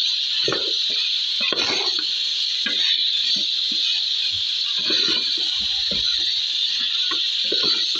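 Food sizzling steadily in a hot pan, with scattered clinks and scrapes of a utensil stirring it.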